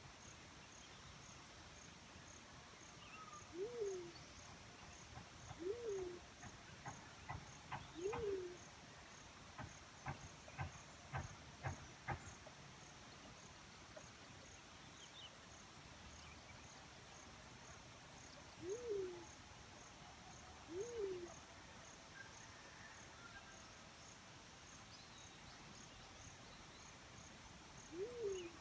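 Black-chinned fruit dove giving single short, low hooting notes that rise and then fall, six times: three about two seconds apart, then two more, then one near the end. A high insect pulses steadily at about two beats a second behind it, and a quick run of sharp clicks or taps comes from about seven to twelve seconds in.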